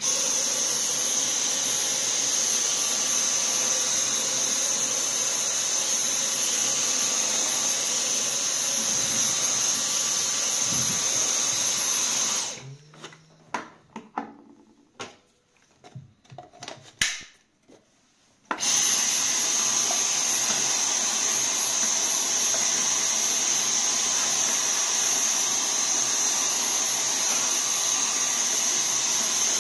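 Cordless handheld vacuum cleaner running steadily with a high whine as it sucks up dust and grit. It switches off about twelve seconds in. A few clicks and knocks follow as the nozzle attachment is swapped, and it starts again about six seconds later.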